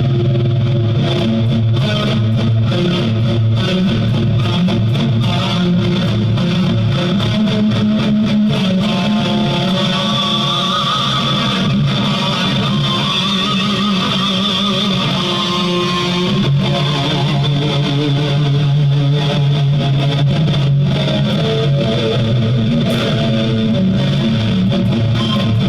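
Guitar music, electric guitar to the fore, playing steadily at an even loudness.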